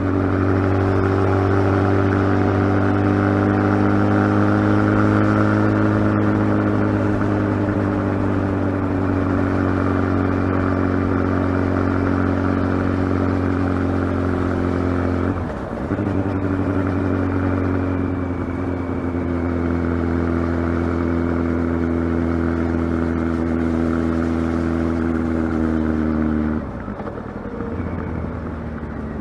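Kawasaki ZX12R's inline-four engine running at steady revs, with a brief dip about halfway through. Near the end the engine note drops and gets quieter.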